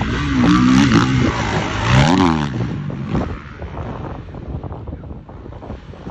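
Motocross bikes racing past, engines revving up and falling back twice in the first couple of seconds, then fading away. Wind on the microphone.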